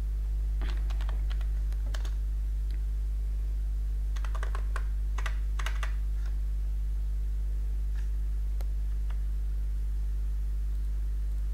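Computer keyboard being typed on in short bursts of keystrokes, most of them in the first six seconds, then a few single clicks. A steady low hum runs underneath.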